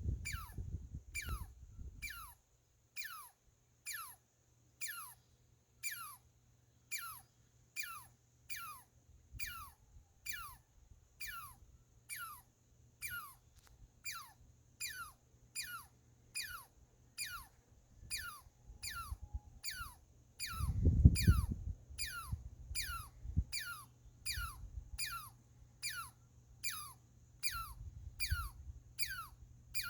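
A squirrel calling over and over, each call a quick falling chirp like a sci-fi laser blast, about three every two seconds at an even pace. A low rumble breaks in briefly about two-thirds of the way through.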